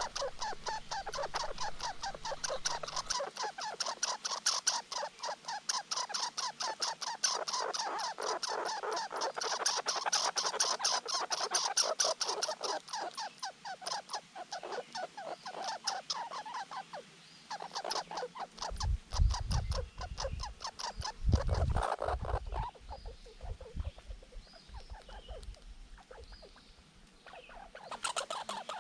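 Red squirrels chattering in a rapid pulsed series during a fight over food, running on for over fifteen seconds. A few low rumbles and bumps follow.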